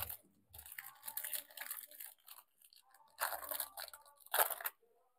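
Foil Pokémon card booster pack being torn open by hand: a few short crinkly tearing bursts of the foil wrapper, faint at first, with the louder tears in the second half.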